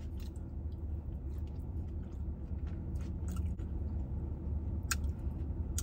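A person chewing a mouthful of soft, sauce-soaked burrito with the mouth closed, with faint wet mouth clicks and one sharper click near the end. A steady low hum runs underneath.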